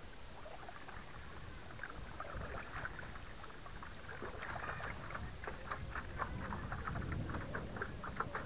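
Paddleboard moving through water: paddle strokes and water splashing and lapping against the board, many small splashes that grow busier from about two seconds in.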